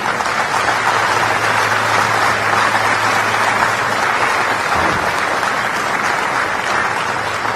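Tennis crowd applauding steadily.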